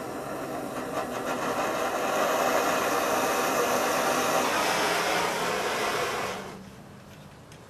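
Handheld gas torch burning with a steady hiss as its flame is held into the pine wood of a tin-can wood gas stove to light it. The torch is shut off about six seconds in, and the sound drops to a much quieter background.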